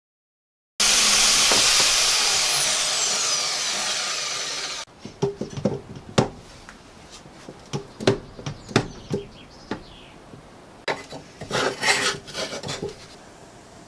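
Power saw cutting metal: a loud, bright grinding-hiss with a thin falling whine, fading slowly for about four seconds before stopping abruptly. After it come scattered sharp knocks and a few short scrapes.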